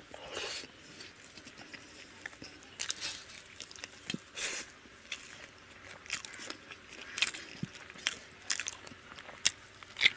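A person eating rice and chicken by hand, chewing with irregular wet mouth clicks and smacks.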